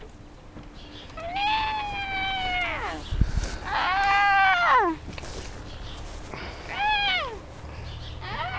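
The spinning tire swing's hanging hardware squeaking: four drawn-out squeaks, each rising and then falling in pitch. There is a dull knock about three seconds in.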